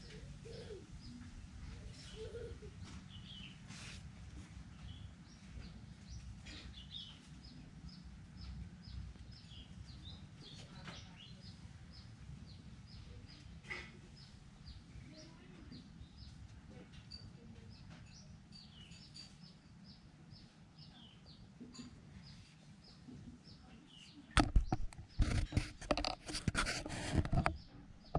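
Small birds chirping again and again over a low steady rumble. Loud rustling and scraping for about three seconds near the end.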